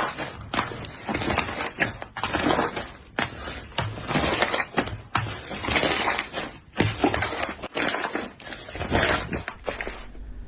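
Slime being squeezed and pressed by hand, giving a dense run of irregular crackles and pops that stops abruptly near the end.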